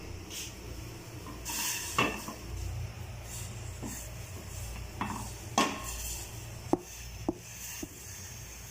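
Chopped ginger being put into a pot of water: a utensil scrapes and clinks against the pot, a handful of sharp clinks mostly in the second half.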